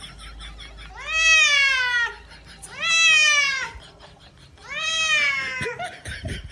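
A wet cat meowing while being washed in a sink: three long, drawn-out meows about two seconds apart, each rising briefly and then sliding down in pitch.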